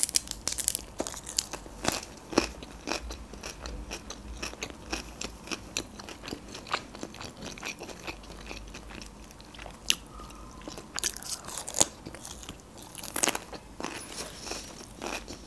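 Close-miked chewing and crunching of crisp nori seaweed with a soft filling: irregular crackly crunches, with a run of louder ones about ten to thirteen seconds in.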